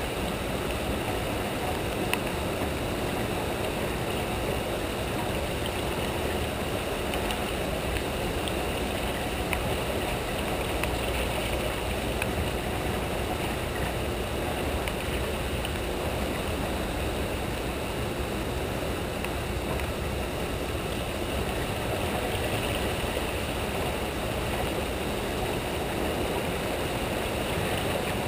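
Steady rushing of turbulent water churning in the tailwater below a hydroelectric dam, an even noise with no breaks.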